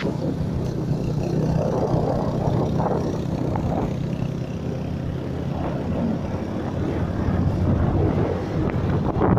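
Motorbike riding along at road speed: a steady engine hum mixed with rough wind noise on the microphone.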